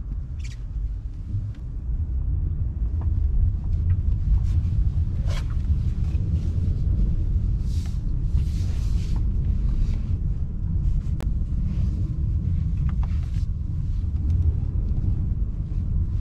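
Steady low rumble of a Honda Ridgeline pickup driving over snow on lake ice, heard from inside the cab: engine and winter tyres on the snow, with a few faint knocks and a brief hiss about eight seconds in.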